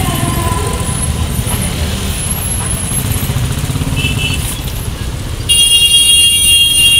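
Motorcycle engines running as bikes pull away, with two short horn beeps about four seconds in, then a long, loud vehicle horn blast from about five and a half seconds, followed by a couple of short toots.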